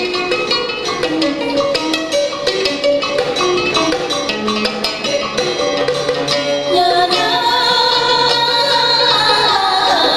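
Traditional Vietnamese music from the water puppet show's ensemble: plucked strings and rapid percussion strikes over a melody. About seven seconds in the percussion drops out and a sustained, wavering melody line takes over.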